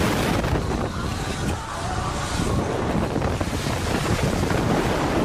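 Wind rushing over the microphone of a camera mounted on a SlingShot reverse-bungee ride capsule as it flies through the air: a loud, steady buffeting noise.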